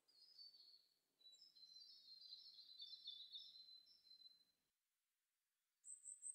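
Faint birdsong: small birds chirping in quick runs of short high notes, which stop about four and a half seconds in, followed by a few higher, sharper chirps near the end.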